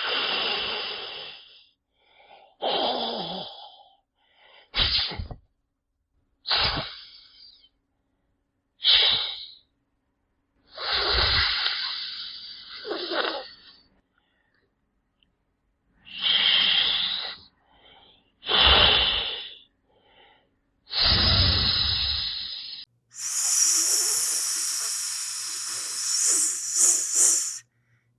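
Snake hissing: about nine separate short hisses with gaps between them. Near the end comes a longer, higher-pitched hiss lasting about four seconds.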